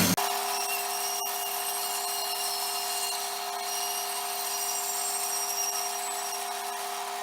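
Power saw running steadily while cutting open a length of plastic pipe, with a steady two-tone whine over the cutting noise.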